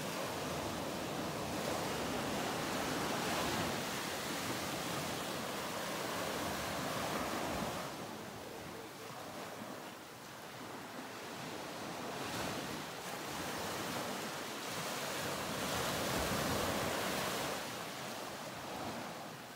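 Ocean surf washing ashore, rising and falling in long surges with quieter lulls between.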